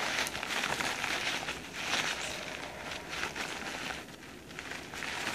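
Blue paper towel crinkling and rustling as a gloved hand wipes and presses it over the face, a scratchy rustle that eases off briefly near the end.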